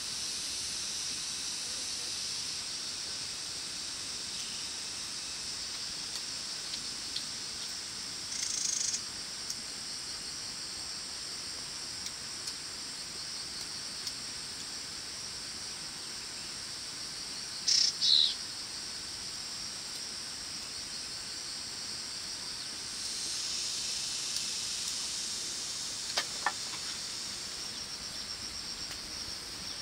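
Rainforest insect chorus: a steady high-pitched shrill drone that swells for a few seconds near the end. A short louder buzz comes about eight seconds in, and two sharp high chirps come about eighteen seconds in.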